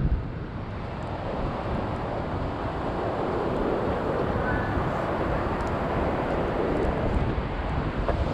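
Strong wind buffeting the microphone over the steady rush of heavy surf.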